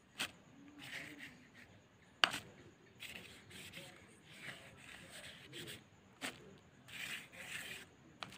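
Paintbrush dragged across paper in several scratchy strokes, each lasting about a second, with a few sharp taps in between.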